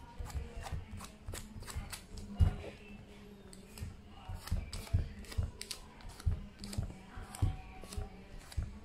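Irregular clicks and soft knocks of a small plastic applicator pressed and rubbed over a screen protector on a tablet, smoothing it down, with a steady low hum underneath.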